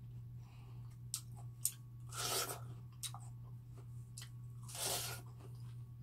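Close-miked bites into a juicy watermelon wedge: two wet, crunching bites, about two seconds in and about five seconds in, with a few small clicks of chewing before them. A steady low hum runs underneath.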